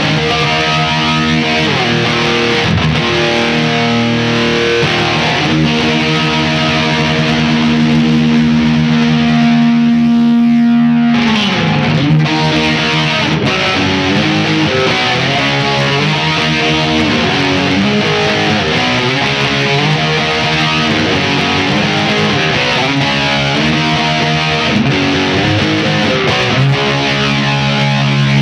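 Electric guitar, a Chibson Les Paul copy on its original pickups, played with distortion through a Line 6 POD GX modeller. A long held note about a third of the way in slides down in pitch, then gives way to a run of quick single notes.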